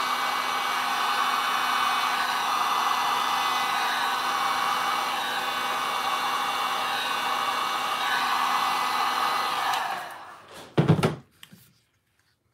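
Heat gun blowing steadily over wet epoxy resin, a steady whir with a fan-motor whine, then switched off about ten seconds in and winding down. A couple of sharp knocks follow just after.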